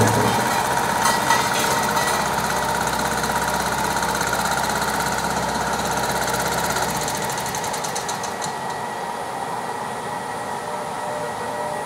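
Engine of road-repair machinery running steadily; its low rumble drops away about seven seconds in, leaving a lighter, hissing machine noise.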